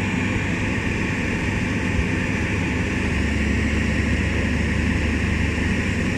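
Excavator diesel engines running steadily, a continuous low drone with no change in pitch.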